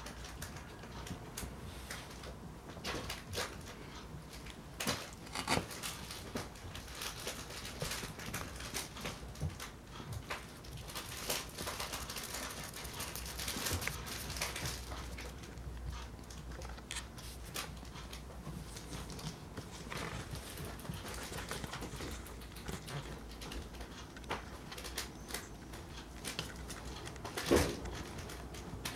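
Young Oriental kittens playing in a fabric pet bed: scattered soft scratching, scuffing and light paw taps on the cushions, with a louder bump near the end.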